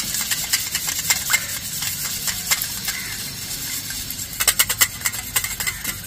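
Wire whisk beating eggs and oil in a stainless steel bowl, its wires clicking and rattling rapidly against the metal. The clicks come thicker and louder for about a second, starting some four and a half seconds in.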